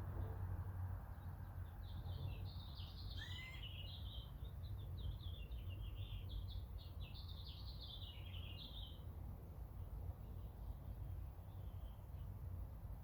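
A songbird sings one long twittering, warbling song of about seven seconds, starting about two seconds in, over a steady low background rumble.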